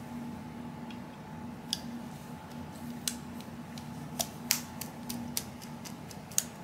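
Scattered light clicks and taps of a metal cleaning rod and jag against a Ruger Vaquero revolver's barrel and frame as a dry patch is pushed down the bore, about seven irregular clicks.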